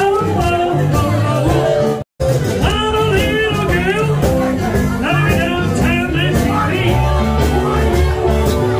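Live band music: a man singing into a microphone over acoustic guitars. The sound cuts out completely for an instant about two seconds in, and then the singing goes on.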